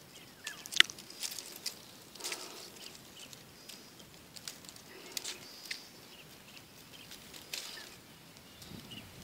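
Quiet outdoor grassland ambience with scattered rustles and clicks, the sharpest one a little under a second in, and faint high chirps now and then.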